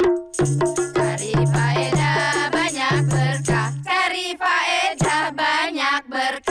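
Group of women singing a short, upbeat hadroh-style jingle, with regular beats on rebana frame drums and a held low bass note underneath.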